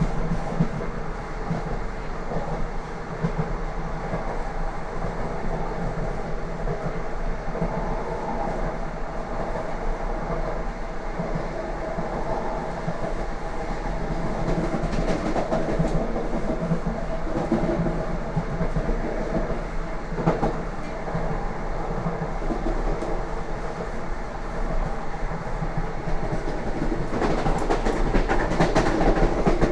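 Lastochka electric train running at speed, its wheels rumbling and clacking over the rail joints, with a louder stretch of rattling near the end.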